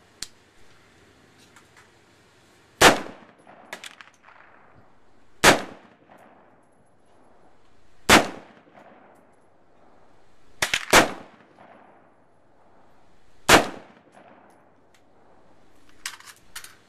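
LWRC M6A2 5.56 mm piston-driven AR-15 rifle fired slowly in semi-auto, five loud shots about two and a half seconds apart, each with a short echo. Fainter sharp cracks and clinks fall between them.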